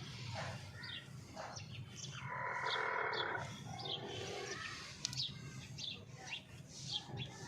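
Hen calling, with a loud drawn-out squawk about two to three seconds in and a shorter, lower one just after, among many short high chirps.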